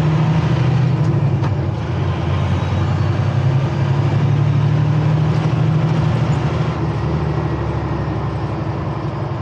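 Semi-truck's diesel engine running under load, heard from inside the cab as the truck pulls out onto the road: a steady low drone whose pitch dips and picks up again a couple of times, with road noise over it.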